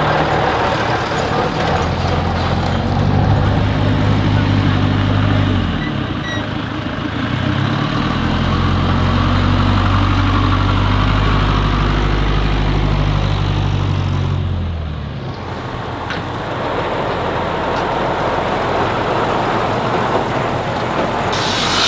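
Heavy truck's diesel engine pulling hard in two long surges, its pitch climbing and then dropping away each time. A short hiss comes near the end.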